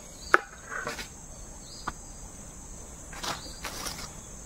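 Insects chirring in a steady high drone, with a sharp knock about a third of a second in and a few fainter clicks and taps as the parang is handled.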